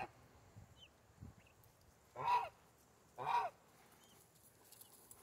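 Domestic geese honking twice, a second apart, each call short. A few faint high peeps can be heard between the calls.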